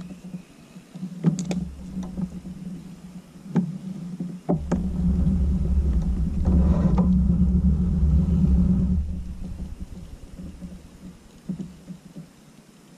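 Pedal drive of a Jackson Bite FD kayak running as it is pedalled: a low rumble that swells for about four seconds in the middle and then dies down, with a few sharp knocks before it.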